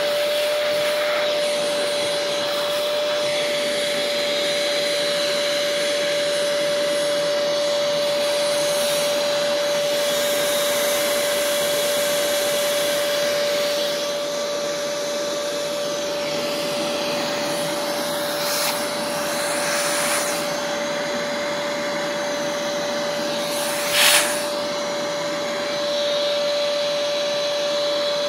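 Shop-vac running steadily with a constant whine over its rushing air noise, with one short, louder rush about three-quarters of the way through.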